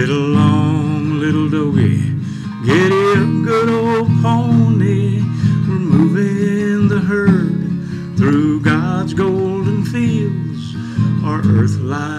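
A man singing a slow country song in drawn-out phrases with a wavering vibrato, over his own acoustic guitar strumming.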